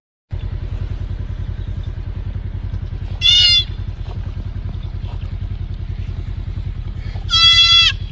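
A deer fawn bleating twice, short high-pitched cries about four seconds apart, over a steady low rumble with a fast even pulse.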